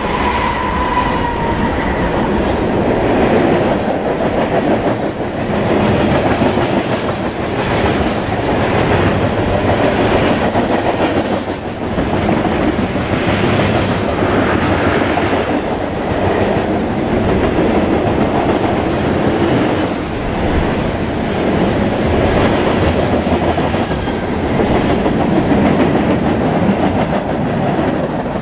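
Norfolk Southern freight train rolling past close by: diesel locomotives at the start, then a long string of freight cars, a steady loud rumble with the irregular clickety-clack of wheels over the rails.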